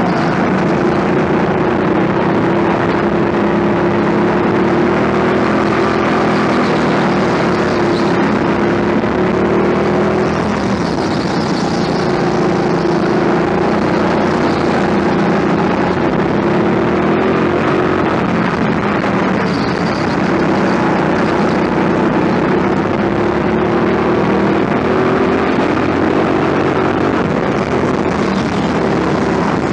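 Go-kart engine heard from the driver's seat, running continuously under throttle, its pitch rising and falling as the kart accelerates down the straights and slows for the corners.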